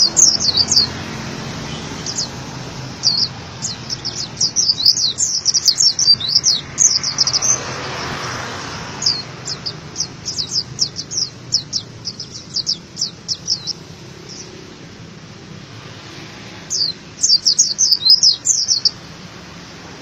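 White-eye (pleci dakun) singing: rapid, high-pitched twittering phrases of quick chirps, with a break of a few seconds before a last burst near the end, over a steady background hiss.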